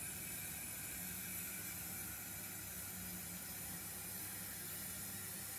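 0 gauge model locomotive running slowly on the layout: a faint, steady hiss with a low electric hum that comes and goes.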